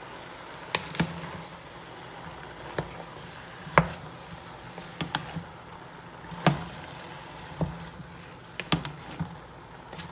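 Wooden spatula stirring diced bottle gourd and tuna in a stainless steel pot, knocking and scraping against the pot in sharp clicks at irregular intervals, the loudest about four and six and a half seconds in.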